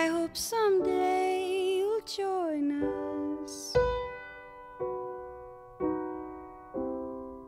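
A woman sings a sustained, wavering line over piano for the first few seconds. After that the piano plays alone, a chord struck about once a second, each one fading away.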